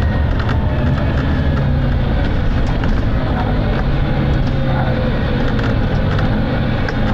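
Volvo B9TL double-decker bus's six-cylinder diesel engine running under way, heard from on board as a steady low drone, with faint falling whines and small rattles over it.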